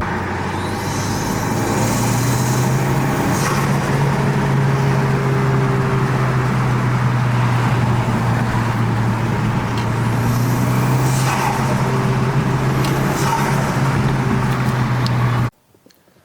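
A motor vehicle running steadily: a constant low engine hum under a broad rushing noise, cut off suddenly near the end.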